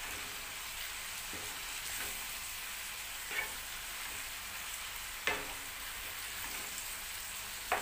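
Cabbage, onion and pepper sizzling in a stainless steel frying pan over a gas flame while being stirred with a wooden spoon, a steady hiss with three sharp knocks of the spoon on the pan.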